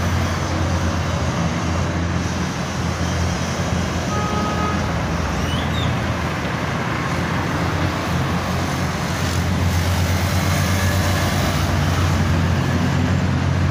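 Steady street traffic, cars and motorcycles passing on a busy multi-lane road, with a continuous low rumble of engines and tyres.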